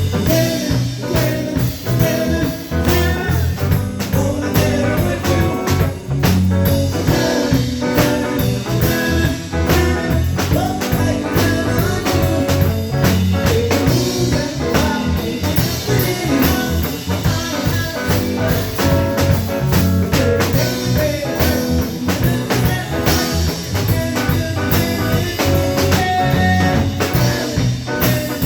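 Live band jamming a blues-style tune, with guitar and drum kit playing steadily.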